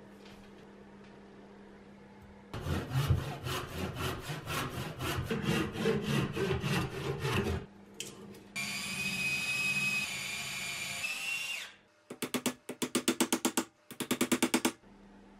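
Work on a wooden handle stub stuck in a hatchet head held in a steel vise: about five seconds of rapid, irregular knocking and scraping, then an electric drill running steadily for about three seconds, rising slightly in pitch just before it stops, then two quick runs of sharp, evenly spaced taps as a punch is worked in the axe eye.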